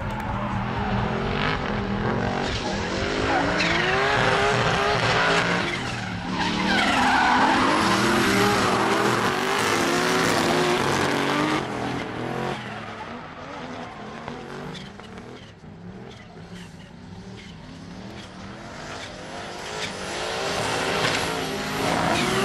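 Two drift cars sliding in tandem: engines revving hard, their pitch rising and falling, over steady tyre screech and skidding. It grows quieter for a few seconds past the middle, then louder again near the end.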